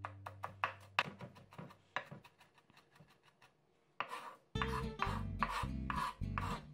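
Chef's knife finely chopping carrot on a wooden cutting board, quick chops about five a second, getting fainter. Then the blade scrapes the diced pieces across the board. Acoustic guitar music comes in about four and a half seconds in.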